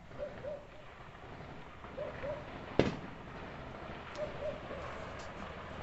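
A distant gunshot cracks once about three seconds in, with a trailing echo, and fainter shots follow near the end. A bird calls three times in short paired hoots.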